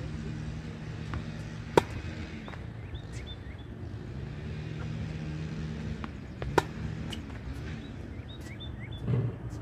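Tennis racket striking balls fed from a ball machine: two sharp hits about five seconds apart, with fainter ball bounces and clicks between them. A steady low hum runs underneath, and birds chirp now and then.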